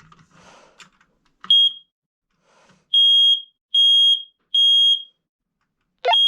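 Smoke alarm sounding under its test button: one short high-pitched beep, then three long beeps in a row and a pause, the three-beep evacuation pattern. A new round of beeps begins near the end, just as a thump is heard. The unit is working.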